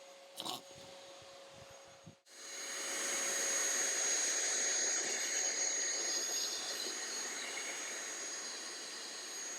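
Vacuum cleaner with a long extendable nozzle running as it sucks stink bugs off a citrus tree: a steady rushing whoosh with a high whine. It is faint for the first two seconds, then after a brief dropout swells loud within about a second and stays loud.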